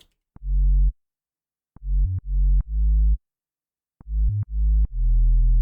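Sub-bass synthesizer layer of a rock track playing a bass line on its own: deep notes separated by short silences, each starting with a small click, with a few quick higher notes in between and one long held note near the end.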